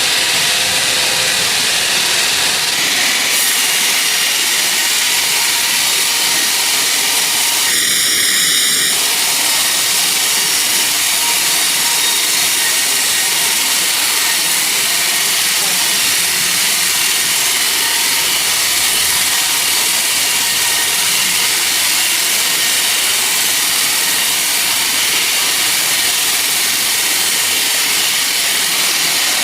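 Sawmill saw running steadily as it cuts through a teak log, a constant high-pitched mechanical noise. About eight seconds in a brief high squeal rings out for roughly a second.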